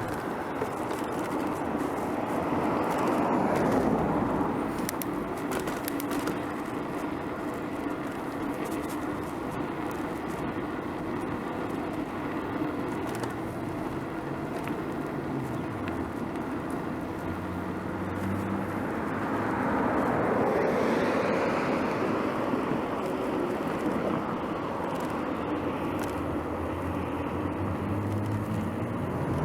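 Street traffic heard from a moving bicycle: a steady hiss of road noise, with passing vehicles swelling louder about three seconds in and again around twenty seconds in.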